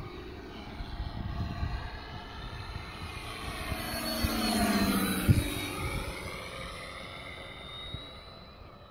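Radio-controlled P-47 Thunderbolt model plane making a pass, its onboard MrRCSound system playing a simulated warbird engine sound through transducers together with its own propeller noise. The sound swells as the plane comes closest about four to five seconds in, then fades. A single short thump is heard at the loudest point.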